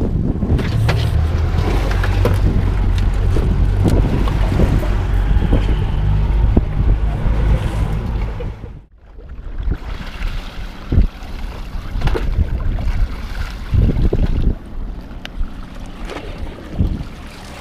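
Wind buffeting the microphone over water sloshing around a kayak. The rumble drops off suddenly about nine seconds in, leaving lighter water noise with scattered short knocks.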